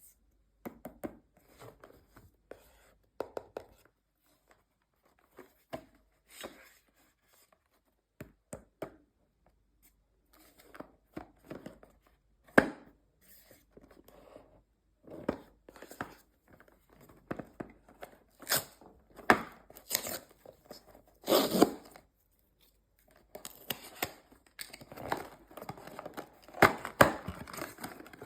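Hands unboxing toy packaging: tearing, crinkling and tapping in short, irregular bursts that come thicker and louder in the second half.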